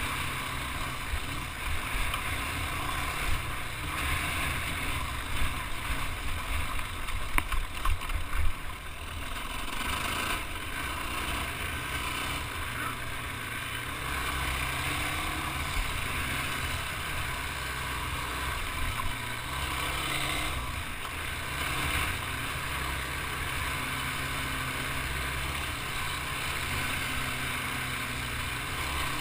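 Sport ATV (quad) engine running steadily while riding a rough dirt trail, with wind noise on the mounted camera's microphone. A cluster of loud bumps and knocks comes about seven to eight seconds in.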